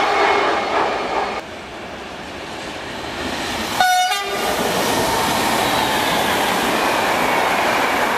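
Train sounding one short horn blast about four seconds in, then rushing past with steady loud wheel and rail noise.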